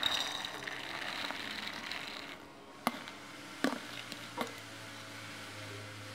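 Steamed mung beans poured into a bowl: a rustling, pattering rush for about two seconds, followed by three light knocks, probably the container being tapped or set against the bowl.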